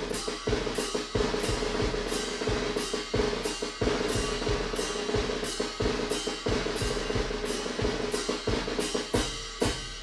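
Drums playing a steady beat, about two strong hits a second, over a held sustained note: the percussion opening of a youth orchestra piece.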